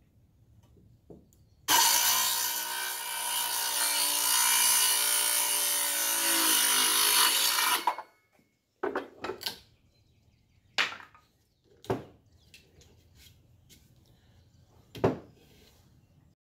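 Bauer 20-volt cordless circular saw with a 24-tooth Diablo framing blade cutting through wood for about six seconds: a loud steady motor whine with the hiss of the blade in the wood, stopping sharply. Then a handful of separate sharp knocks and clatters.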